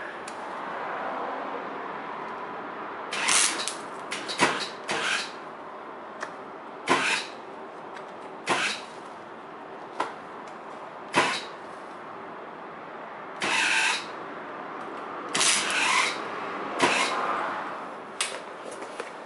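MIG welder striking its arc on a steel exhaust pipe in about fifteen short, irregular bursts, each well under a second, beginning about three seconds in. The broken, stop-start welding goes with the spool of welding wire running empty.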